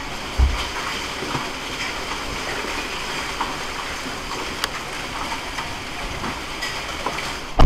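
Hail and rain pelting the roof, heard from inside a Toyota LandCruiser Troop Carrier's cabin: a steady hiss of falling water and ice with scattered sharp knocks of hailstones and one loud bang near the end.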